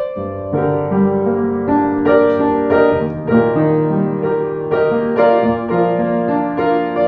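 Piano playing a slow pop ballad: held bass notes under sustained chords and a melody, with a new chord struck every half second or so.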